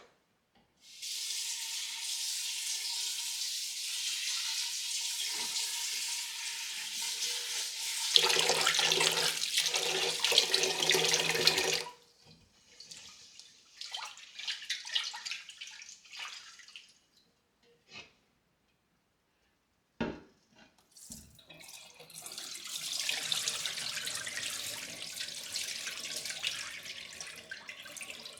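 Water running from a kitchen tap into a sink for about ten seconds, shutting off, a few short splashes, then the tap running again for several seconds near the end.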